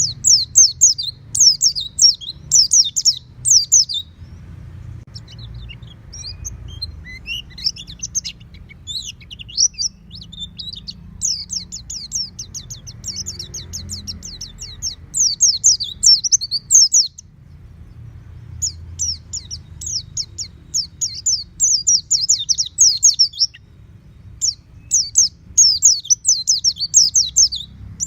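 White-eye (pleci) singing: rapid strings of high, quick chirping notes in bursts of several seconds with short pauses between them, over a faint low hum.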